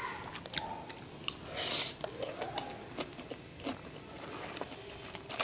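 Close-up eating sounds of a person eating black bean noodles: chewing with many short mouth clicks, and a louder noisy slurp of noodles about two seconds in.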